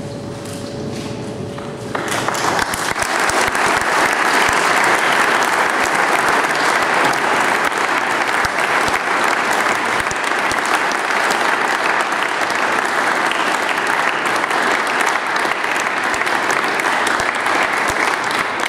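Audience applauding, a dense clapping that starts about two seconds in and holds steady, easing off right at the end.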